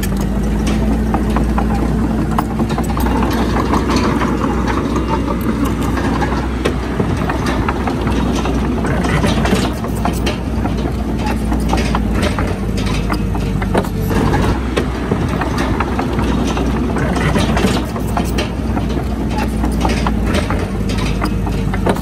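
Komatsu D31PX crawler bulldozer's diesel engine running steadily, under a clatter of short knocks and scrapes from the machine working.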